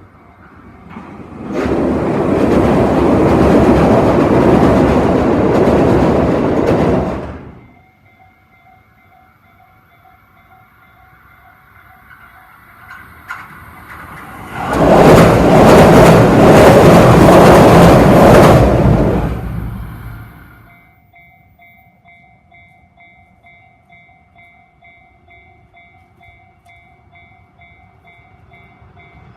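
Level-crossing warning bell ringing in a steady repeating pulse while two trains pass in turn. Each pass is a few seconds of loud rail noise: the first starts about two seconds in, the second about fifteen seconds in.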